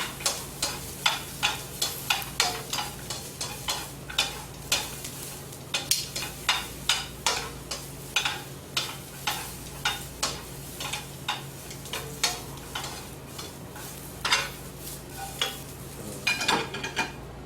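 Vegetables stir-frying in a pan over medium heat: a steady sizzle with a utensil knocking and scraping against the pan about twice a second. The stirring and sizzle stop near the end.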